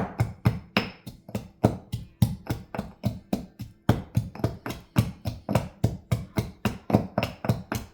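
Garlic smasher pounding garlic cloves in quick, steady strokes, about four or five knocks a second.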